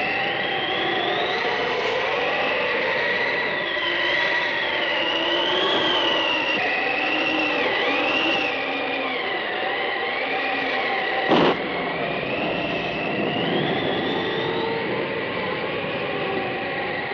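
Layered spooky sound effects from a Halloween record: eerie wavering, gliding whistle-like tones over a steady droning bed, broken by one sharp crack about eleven seconds in.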